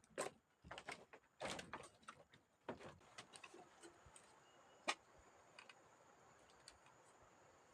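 Faint, irregular clicks and light scrapes of objects being handled, the sharpest click about five seconds in, then near quiet.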